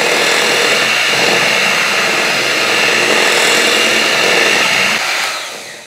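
Electric kitchen mixer running at a steady speed, beating the last of the flour into muffin batter, then switched off and winding down near the end.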